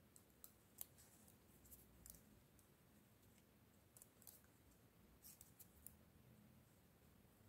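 Near silence with faint, irregular clicks of knitting needles as they work stitches.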